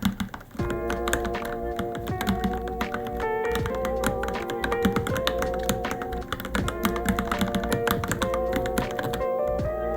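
Fast, continuous typing on a Varmilo Minilo mechanical keyboard: a dense run of key clicks with only a brief pause about half a second in. Background music plays underneath.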